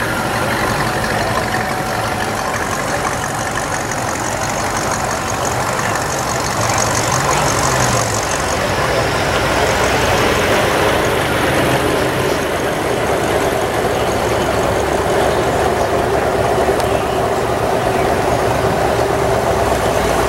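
Classic American car engines idling as the cars roll past slowly, one after another: a chrome-bumper C3 Corvette, then a 1958 Chevrolet, then an early-1970s Dodge Charger. The sound stays steady throughout.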